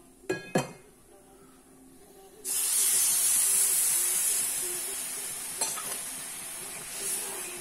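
Milk poured into a hot pan of ghee-roasted semolina (rava): a sudden loud sizzling hiss sets in about two and a half seconds in and slowly dies down as the milk bubbles. Two short knocks come first, near the start.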